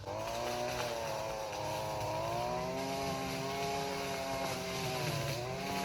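Gas-powered string trimmer (weed eater) engine running at steady working speed, its pitch wavering slightly up and down, with a brief dip near the end.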